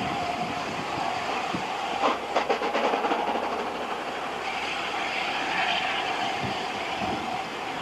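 Steam-hauled train headed by LNER A4 Pacific 60009 running, with a rapid clatter of wheels over rail joints about two seconds in and a hiss rising for a couple of seconds in the middle.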